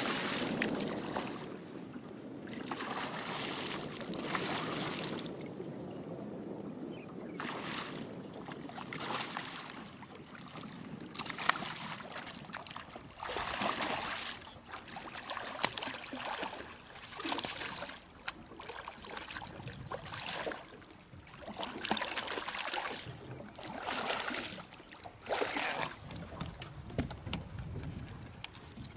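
A hooked fish splashing and thrashing at the water's surface beside a boat, in repeated irregular splashes every second or two.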